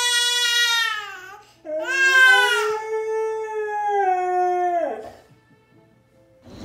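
A baby cries with a long wail that fades out about a second in. Then a husky howls: one long howl that rises, holds, and drops away at the end, about three seconds long.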